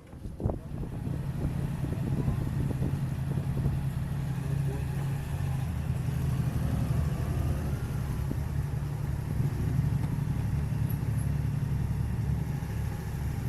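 Motor vehicle engine running steadily close by, a low hum that comes up about a second in and holds.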